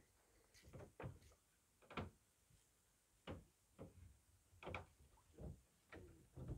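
Faint, irregular knocks and thuds from a small boat on calm backwater, roughly one a second, each one short.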